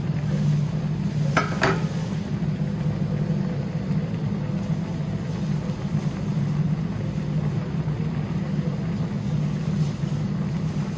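A pot of budae jjigae coming to the boil on an induction cooktop: a steady low hum under a noisy, bubbling haze, with two sharp clicks about a second and a half in.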